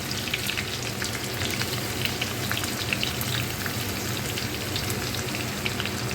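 Chopped onion and browned garlic frying in hot vegetable oil in a heavy-bottomed karahi: a steady sizzling hiss with many small crackling pops.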